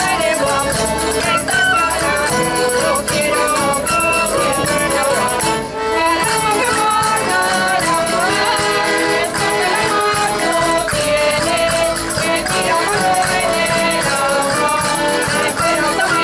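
Spanish folk ensemble performing: a women's chorus singing in unison over a small wooden flute, plucked lute-like strings and an accordion, with rattling hand percussion keeping a steady beat.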